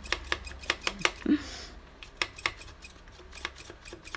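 Irregular sharp clicks and light taps, several a second, from a hair straightener being clamped and moved over a sheet of EVA foam to heat it.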